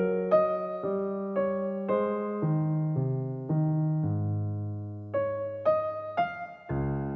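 Background music on a piano-type keyboard: slow single notes over held chords, with a longer low chord about two-thirds of the way through.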